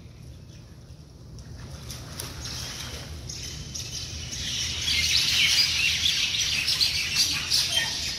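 A flock of birds chirping and chattering in the trees, faint at first and building to a dense, busy chorus from about three seconds in, over a low steady background rumble.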